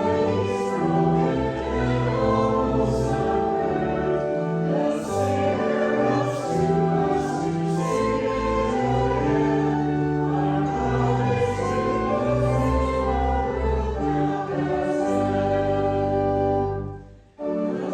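A congregation singing a hymn together in held, sustained notes over an accompaniment with a moving bass line. The sound drops away briefly near the end, a pause between lines or verses, and then resumes.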